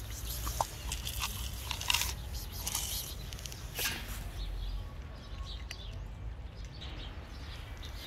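Cats chewing dry kibble: irregular crisp crunches, thickest in the first four seconds and sparser after, over a steady low rumble.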